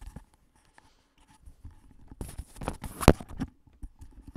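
Fabric rustling and scraping as a plush hood is pulled down over the head, with one sharp knock about three seconds in.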